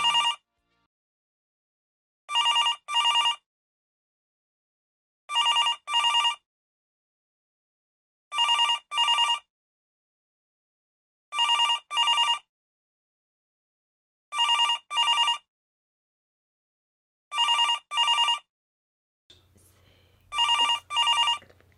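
A telephone ringing with a double ring, ring-ring, repeating about every three seconds.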